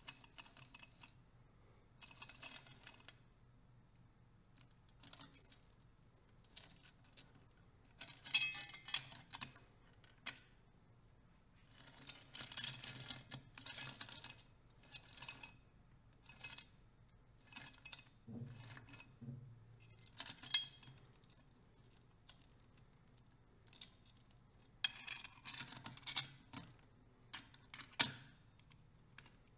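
Intermittent metallic clinks and chain rattles as a Honda CBX six-cylinder crankshaft, with its primary and cam chains, is handled and seated in the aluminium engine case. The sound comes in several short clattering bursts with pauses between.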